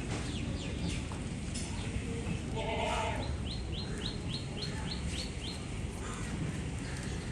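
A goat bleating once, about three seconds in, followed by a bird chirping a quick series of short high notes, about four a second. A steady low background noise runs underneath.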